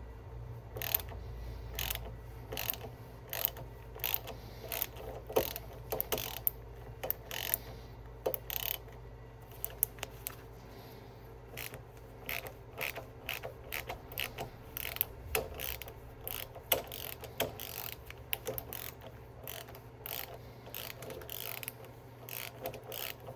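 Hand ratchet clicking in irregular runs as it turns a bolt extractor, backing out a rusted, stripped bolt that has just broken free.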